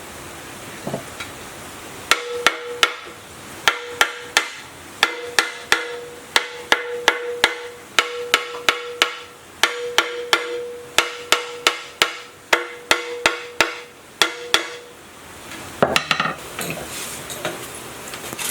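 A hammer striking metal over and over, about three blows a second, each leaving a short metallic ring. The blows start about two seconds in and stop near fifteen seconds, followed by a brief clatter.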